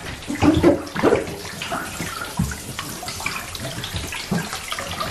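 Bath water sloshing and splashing as children shift about in the tub, with a dense crackling and popping from crackle bath crystals fizzing in the water.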